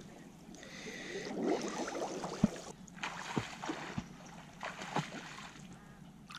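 Water sloshing and splashing in several bursts from people wading through shallow, muddy reservoir water, with a few dull thumps.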